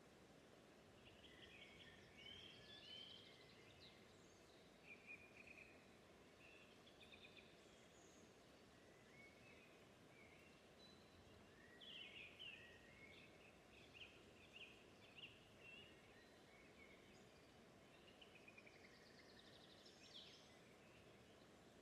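Faint birdsong: short chirps and trills from one or more birds, in scattered clusters, over a steady low background hiss.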